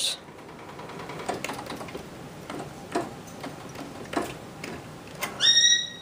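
Claw machine's gantry and claw motors whirring softly, with a few light clicks as the claw moves into position. A short high tone sounds near the end.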